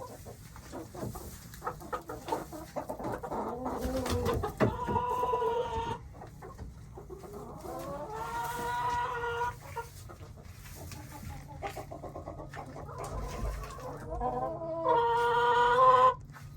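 Chickens clucking, with three long drawn-out calls: about four and a half seconds in, about eight seconds in, and a loudest one near the end.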